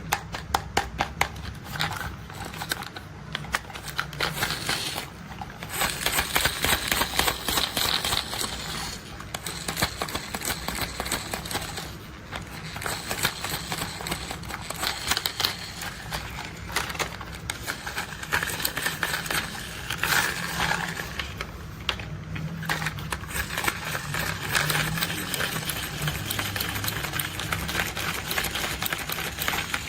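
Plastic toy construction vehicles being handled and tapped: a fast, continuous run of small clicks and taps, with stretches of rattling and scraping.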